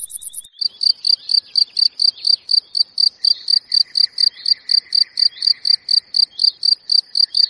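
Crickets chirping: a steady, evenly spaced high chirp about four times a second. A faster, higher trill stops about half a second in.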